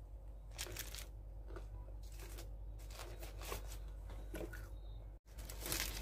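Crispy KFC fried chicken coating crunching in a string of short crackles as it is chewed and pulled apart. The sound drops out for an instant about five seconds in.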